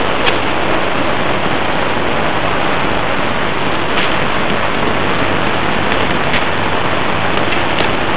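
A steady, even hiss with a few faint clicks scattered through it.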